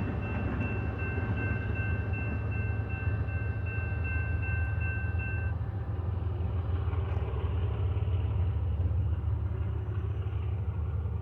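A string of BNSF GE diesel locomotives running light with no cars, making a steady low rumble of engines and wheels on rail. A thin, steady high whine over the rumble stops about halfway through.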